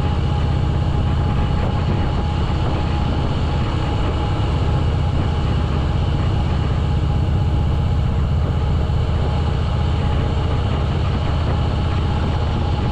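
Harley-Davidson V-twin motorcycle engine running under way, heard from the rider's seat as a steady, deep engine sound with no change in pace.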